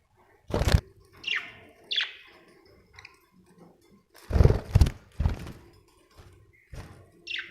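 Budgerigar giving three short chirps that drop sharply in pitch, between several louder sharp knocks and thumps.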